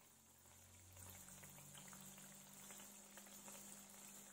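Jalebi made from dosa batter frying in hot oil in a shallow pan: faint, steady bubbling and fine crackling of the oil, a little louder from about a second in, with a faint low hum underneath.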